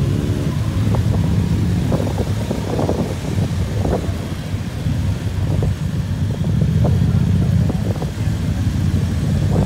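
Many motorcycle engines idling together, a steady low rumble, growing louder about two-thirds of the way through.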